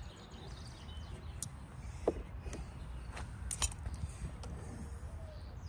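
Scattered light clicks and taps of plastic trimmer parts being handled as a loose shaft clamp is tightened, over a low steady outdoor hum.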